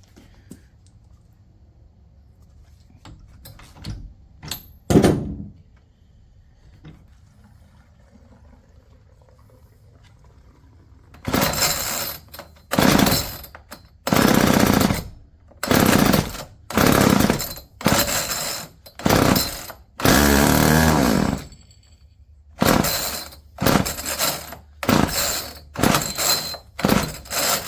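Small two-stroke engine of an old chainsaw winch being pull-started, primed with gas squirted into the cylinder: about a dozen quick recoil pulls, each with a short burst of noise. It fires briefly on one pull but won't keep running, which the owner takes as a sign the carburetor needs cleaning. A couple of knocks come first, before the pulls.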